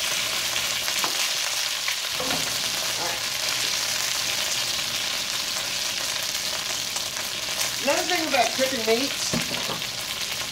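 Bone-in chicken thighs frying in olive oil in a stainless steel skillet: a steady sizzling hiss, with a few light knocks.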